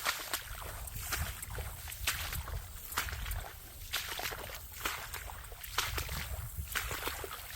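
A hiker's footsteps on the trail, about one step a second, each a rustling swish with small clicks, over a low rumble on the microphone.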